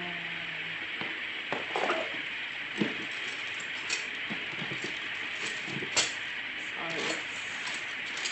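Steady hiss of a room electric fan, with scattered light clicks, knocks and rustles of packaging and small plastic parts being handled as a trimmer router is unboxed.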